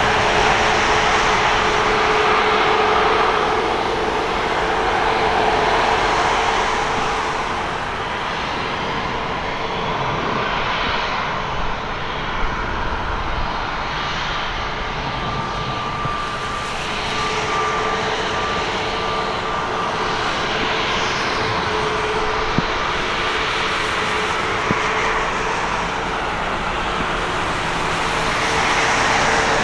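Airbus A320neo's CFM LEAP-1A turbofan engines running at taxi power as the airliner taxis past: a steady jet rush with a steady whine, swelling louder near the start and again near the end.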